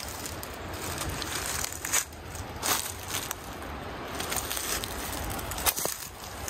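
Footsteps crunching through dry leaf litter, needles and twigs on a forest floor, with a few sharper cracks of snapping sticks.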